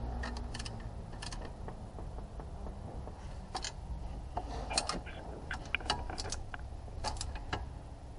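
Wrenches working a bolt, with scattered sharp metallic clicks and clinks at uneven intervals over a low steady hum.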